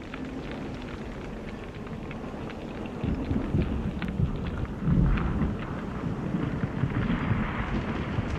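Thunderstorm sound effect under an animated title: a steady hiss of rain with scattered crackles, then low rolls of thunder from about three seconds in, loudest about five seconds in.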